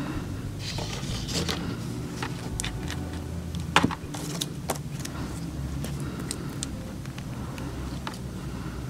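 Small gel polish bottles and a plastic tray being handled on a table, giving scattered clicks and light knocks with one sharper clack about four seconds in, over a steady low hum.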